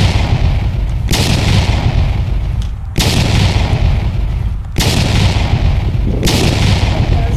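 Wind buffeting the microphone: a loud, constant low rumble, with a hiss over it that cuts in and out abruptly several times.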